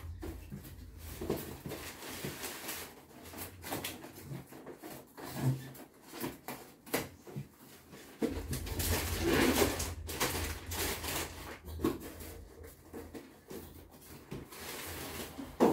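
Packaging handled as a window air conditioner is lifted off its styrofoam base: plastic wrapping rustling, with scattered knocks and scrapes. The rustling gets louder about nine seconds in and again near the end.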